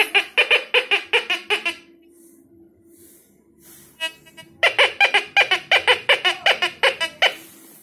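Tianxun TX850 metal detector beeping in rapid pulses as it picks up metal near the coil. One run of beeps lasts about two seconds, and after a pause a second run lasts nearly three seconds, over a faint steady hum. The detector is responding to a target, which shows it works.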